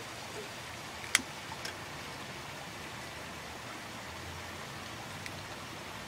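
Steady hiss of outdoor background noise, with one sharp click about a second in and a couple of fainter ticks later.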